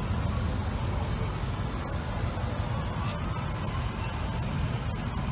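Low, steady rumble of slow-moving cars driving past in a line, their engines running at low speed.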